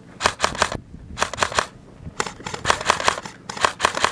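Footsteps crunching on rough ground, a short crunch every half second or so, some steps coming in quick clusters.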